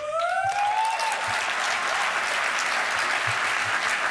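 Audience applauding steadily, with a brief rising cheer from one voice as the clapping begins.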